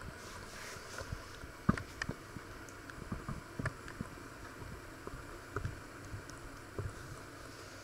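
Handling noise from a handheld camera being moved: scattered soft knocks and clicks over a steady low hiss, the sharpest knock about two seconds in.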